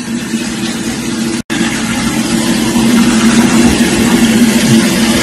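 A motor engine running steadily: a constant hum with hiss, cut off for an instant about one and a half seconds in, then louder.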